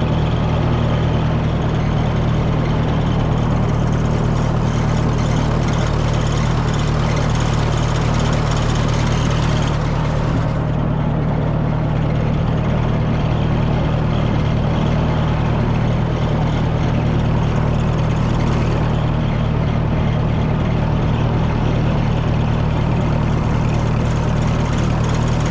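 Farm tractor engine running steadily as the tractor is driven, a constant low drone.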